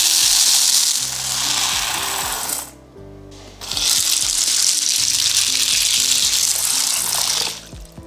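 Dry green lentils pouring into a nonstick saucepan, a dense pattering hiss for nearly three seconds. After a short pause, water is poured onto the lentils in the pan, splashing steadily for about four seconds. Soft background music plays underneath.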